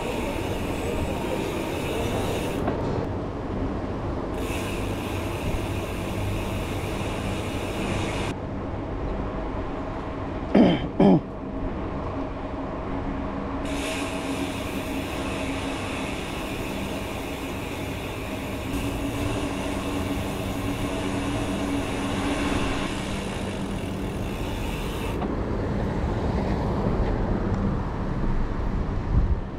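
Steady rush of wind and tyre noise from a bicycle rolling through city streets. About ten seconds in come two short, loud sounds, one right after the other, each falling sharply in pitch.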